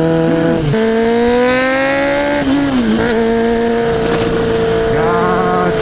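Honda Hornet 250's inline-four engine running under way. Its pitch climbs as the bike accelerates, then drops sharply about two and a half seconds in at a gear change and holds steady afterwards.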